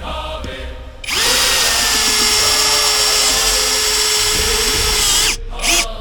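Power drill running at a steady speed for about four seconds, dipping in pitch as it stops, then a brief second burst of the trigger.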